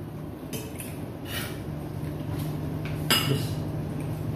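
Spoons and forks clinking and scraping against ceramic plates and bowls as food is dished up, a few separate clinks with the loudest about three seconds in. A low steady hum runs underneath.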